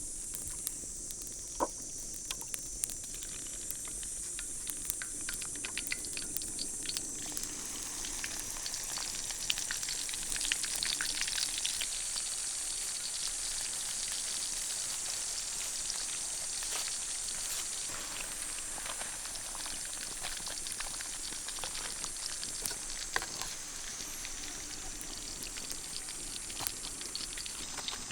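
Turkey deep-frying in hot oil: a steady, high sizzle with frequent small crackles and pops.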